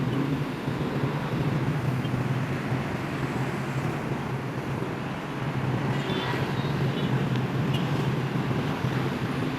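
Steady city road traffic rumble, with a few faint short high-pitched tones about six to eight seconds in.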